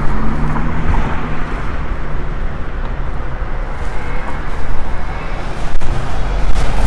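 Road traffic close by: car engines running and tyres on the road, a steady noise with an engine hum strongest in the first second or so.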